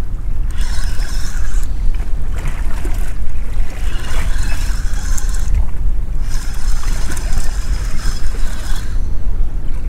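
Wind buffeting the microphone as a steady low rumble, with water washing against the hull of a small boat at sea; the splashing hiss swells and fades three times.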